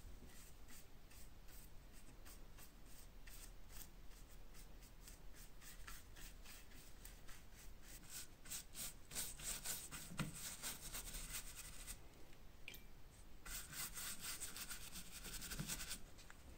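A bristle brush scrubbing over a wet leather bellows panel, a run of quick scratchy strokes. The strokes get busier and louder in two spells in the second half.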